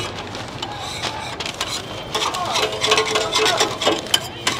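Indistinct background voices with scattered clicks and clatter.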